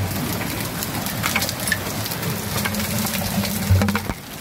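Heavy rain and hail coming down, with many sharp clicks and clatters of hailstones striking hard surfaces over the steady hiss of the rain. A louder dull thump lands about three and a half seconds in.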